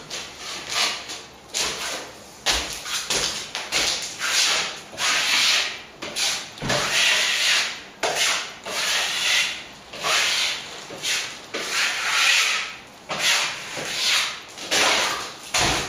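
Plasterer's trowel scraping across a firming white set coat in quick repeated strokes, about one or two a second. It is a dry polish of the finish plaster, done with little water so the calcimine paint underneath doesn't loosen.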